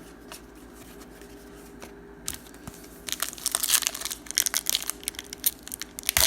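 Plastic trading-card pack wrapper being torn open and crumpled, a dense crinkling and crackling that starts about three seconds in.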